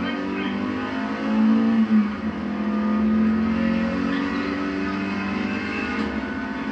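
Rally car engine heard from inside the cockpit at full effort, its pitch rising and dropping as the car accelerates and changes gear.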